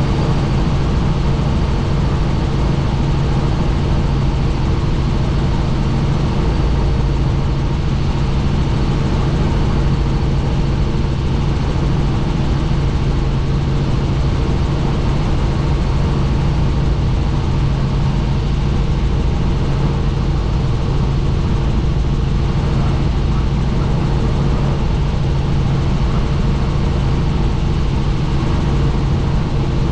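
Helicopter running steadily: a constant low engine-and-rotor hum under a broad rushing noise.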